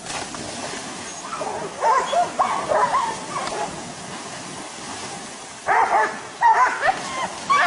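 Dogs barking and yelping in two bursts, about two seconds in and again near six seconds, as they attack a wild boar, over the steady rush of a fast river.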